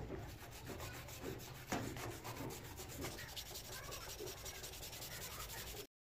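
A hand brush scrubbing rust off a wet iron axe head in a steel bowl, a rapid back-and-forth rasp. One sharp knock a little under two seconds in; the sound cuts off abruptly near the end.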